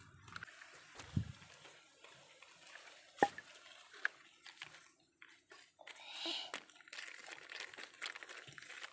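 Plastic toy truck being pushed by hand through wet mud and soil: faint scrapes, squelches and scattered small clicks, with one sharper click a little over three seconds in.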